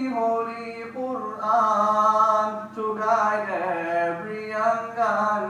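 A man singing an Islamic nasheed in a slow, drawn-out melody, the notes held and gliding from one pitch to the next.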